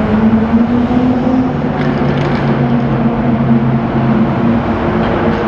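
Sports car engines running loud and steady at low revs, several held tones over the noise, one beginning to rise in pitch near the end as revs climb.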